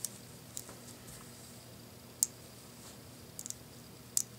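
Small neodymium magnet balls clicking as they snap onto one another while a string of them is wrapped around a magnet shape. The clicks are short and sharp and come one by one at irregular times, the loudest about two seconds in and a quick pair of them a little later.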